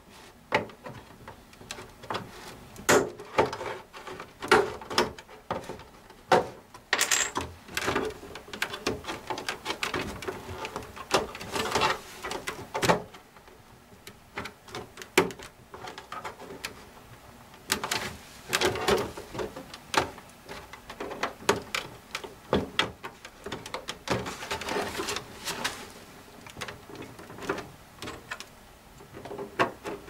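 Rear plastic cover of an HP Pro 3420 all-in-one computer being prised open by hand, giving many irregular sharp clicks and cracks as it comes away from its latches.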